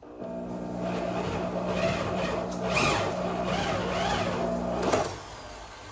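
Drill spinning a Stripmeister wire stripper as heavy 3 gauge copper wire is fed through, a steady motor note with scraping over it, stopping suddenly about five seconds in. The drill is binding under the load of the thick wire.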